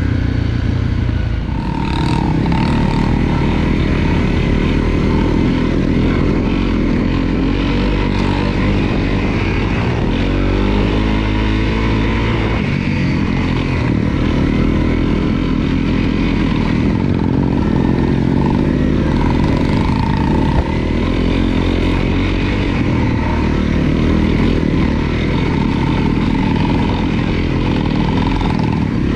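Honda CRF250L's single-cylinder four-stroke engine running while riding, its pitch rising and falling with the throttle.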